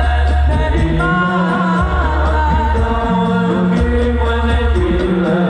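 A man singing a melismatic Islamic devotional song (sholawat) into a microphone through a PA system, his voice gliding and ornamenting over held deep bass notes of the accompaniment.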